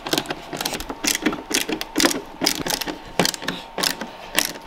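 Ratcheting screwdriver clicking in quick, uneven runs as panel screws are backed out.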